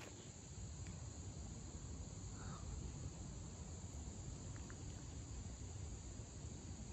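Quiet woodland ambience: a faint, steady hiss of insects over a low rumble.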